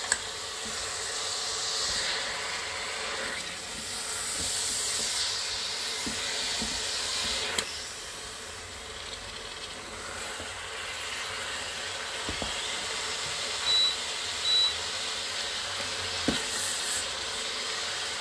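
Mutton pieces frying in oil in an electric pressure cooker's pot: a steady sizzling hiss as the meat browns, with a few light scrapes of a spatula turning it. Two short high beeps about three-quarters of the way through.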